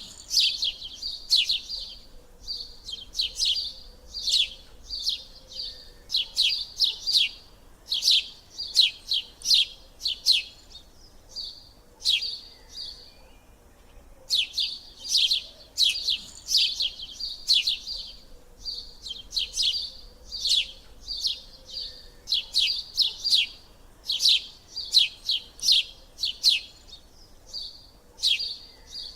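Small birds chirping: quick high chirps in dense runs, several a second, with a short break about halfway through and another near the end.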